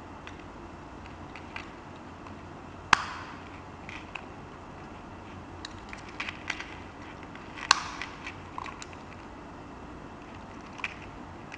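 Sharp metallic clicks from a pocket watch's hinged case cover being snapped open and shut: two loud snaps about three seconds in and near eight seconds, with lighter clicks and small rattles from the watch and chain being handled in between.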